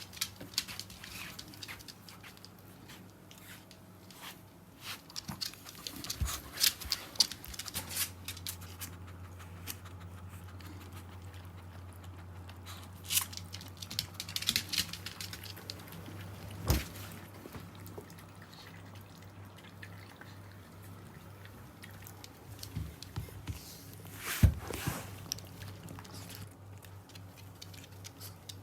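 Small dog eating, with wet smacking and licking clicks in irregular bursts, a few single louder clicks, over a low steady hum.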